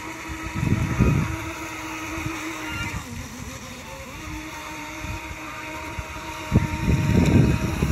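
Stock brushed 380 motor of an NQD RC jet boat, run on a 3S LiPo, whining steadily at speed. The whine breaks briefly about three seconds in. Low rumbles of wind on the microphone come about a second in and again near the end, where they are the loudest sound.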